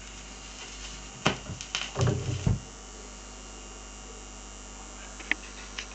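Technics SL-BD22 turntable's stylus riding the run-out groove of a 45 rpm single after the music has ended: a steady mains hum through the playback, with a few clicks and low thumps in the first half and two small clicks near the end.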